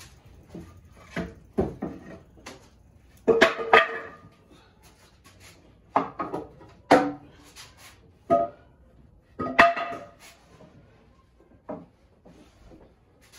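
Timber frame of a homemade wooden bunk bed being lifted and shifted by hand: a series of wooden knocks and creaks of board against board. The loudest clusters come about three seconds in, around six to seven seconds, and near ten seconds.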